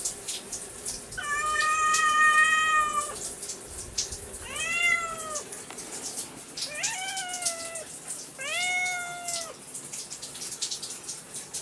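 Domestic cat meowing to be let out at a closed door: one long, level meow, then three shorter meows that rise and fall, a second or so apart.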